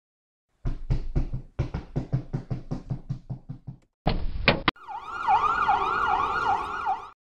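A quick series of short thuds, then a brief loud burst of noise with two sharp clicks, then an ambulance siren wailing in fast rising-and-falling sweeps, about three a second.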